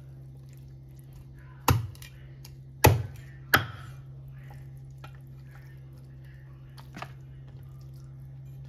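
Cleaver chopping raw chicken on a thick round wooden chopping board: three heavy chops in quick succession, then a lighter knock near the end. A steady low hum runs underneath.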